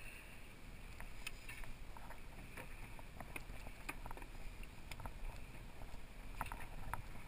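Steady low rumble of wind and sea water around a small boat, with scattered light clicks at irregular times.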